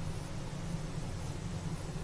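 Steady low hum with a faint even hiss: room tone, with no other sound.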